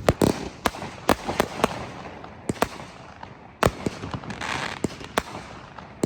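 Fireworks going off in a rapid, irregular string of sharp bangs, about a dozen in six seconds, with crackling in between.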